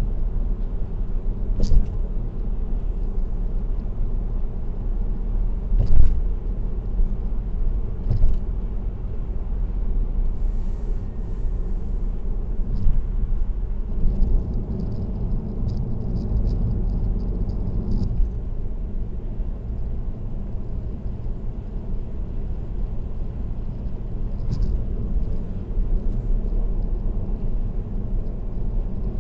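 Car driving at expressway speed: steady low road and tyre rumble, with a few thumps from bumps or joints in the road about 2, 6 and 8 seconds in, the one near 6 seconds the loudest.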